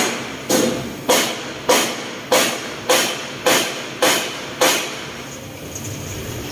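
Hammer blows on steel in a steady rhythm, a little under two a second, each with a short metallic ring; the hammering stops about five seconds in.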